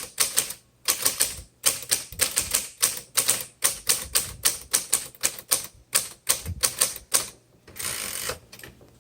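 1959 Smith-Corona Sterling manual typewriter being typed on: a fast run of sharp key strikes, about four a second, stopping about seven seconds in. A short rasping sound follows.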